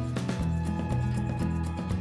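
Background music with a steady beat, held bass notes and plucked guitar.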